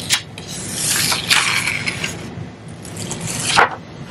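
Sheet of sublimation transfer paper being peeled off a freshly heat-pressed polyester blanket and lifted away, rustling and crinkling in a few bursts.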